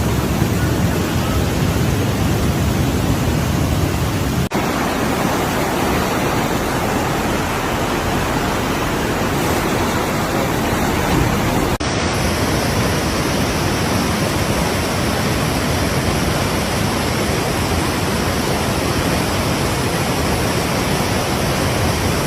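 Waterfall running full after rain: a steady, loud rush of falling water, with two brief dropouts, about four and a half and twelve seconds in.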